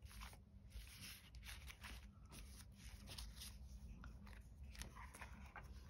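Faint rustling of paper stickers being sorted through by hand in a cardboard box: a run of soft, short, irregular crinkles.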